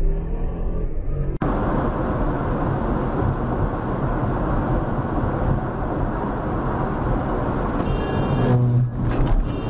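Car driving at highway speed, heard from inside: a steady rush of tyre, wind and engine noise. Near the end, a pitched sound with several steady tones comes in over it.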